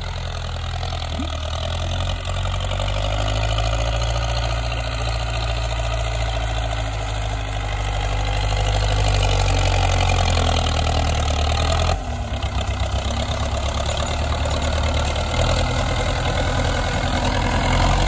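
MTZ tractor's four-cylinder diesel engine running steadily while pulling a seed drill through ploughed soil. The sound changes abruptly about twelve seconds in, becoming more uneven and pulsing in the low end.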